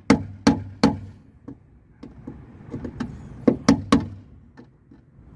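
Pliers used as a hammer, tapping a screwdriver to punch flattened rivets through a car door's inner sheet-metal panel. Three sharp taps come in the first second, a few faint ones follow, and another quick run of three taps comes about three and a half seconds in.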